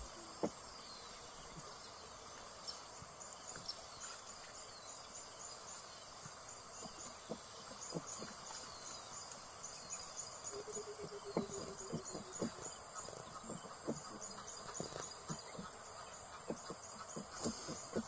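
Insects chirping, cricket-like, with short high chirps repeated over and over above a steady soft hiss. Faint scattered clicks sound now and then.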